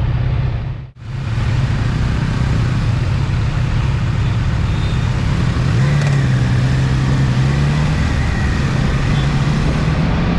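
Motorcycle running at road speed with steady wind and road noise; the engine note rises a little about six seconds in. The sound cuts out briefly about a second in.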